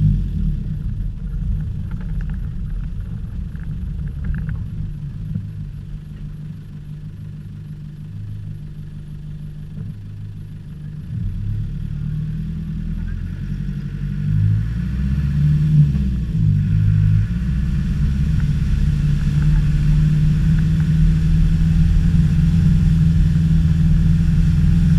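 Land Rover Discovery's engine pulling the vehicle over rough off-road ground. It eases off and runs quieter through the first half, then picks up with rising revs in the second half and runs harder and steadier near the end.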